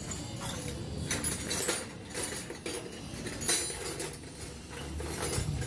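Irregular metallic clinks and light taps of hand tools on motorcycle engine parts during dismantling, over a low steady hum.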